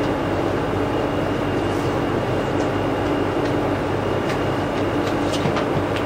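Steady mechanical room noise: an even rushing drone with a constant low hum and a faint high whine, and a few faint ticks in the second half.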